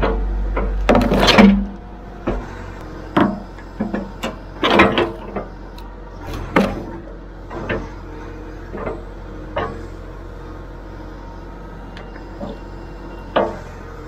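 Excavator engine running steadily while its toothed bucket digs and prys into a pine log, with repeated sharp cracking and splintering as chunks of wood tear away around a chain that is embedded in the trunk. The cracks are loudest and closest together in the first five seconds.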